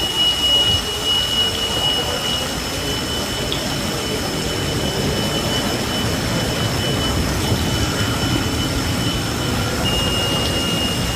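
Steady rushing noise with a thin, constant high-pitched whine.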